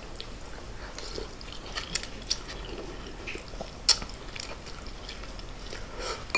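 Quiet eating sounds of pho noodles being eaten with plastic utensils from a glass bowl, with scattered small clicks.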